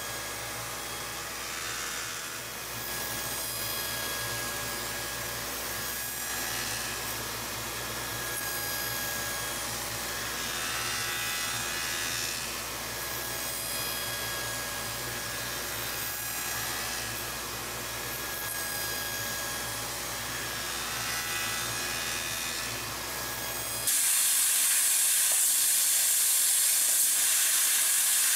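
Belt-driven circular saw running steadily and cutting a row of grooves into a wooden block, its noise swelling and easing with the cuts. About 24 s in it gives way suddenly to a louder, steady hiss from a CNC laser cutter cutting sheet metal, its assist gas rushing through the nozzle.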